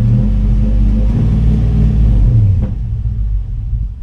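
Nissan pickup's engine and new aftermarket cat-back exhaust heard from inside the cab: a deep rumble that rises in pitch as the engine is revved, then eases off about two and a half seconds in.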